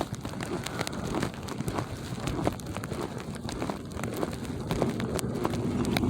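Footsteps crunching through ankle-deep snow in an irregular series of short crunches, with a vehicle's engine running steadily in the background.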